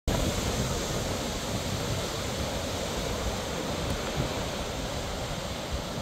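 Sea surf breaking over rocks below a cliff: a steady, unbroken wash of noise.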